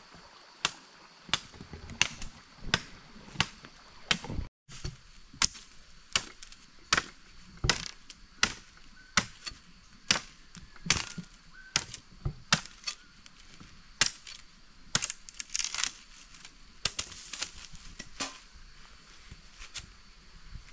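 Machete striking a green sapling pole in a steady series of sharp chops, about three blows every two seconds, with a quicker flurry of blows a little past the middle.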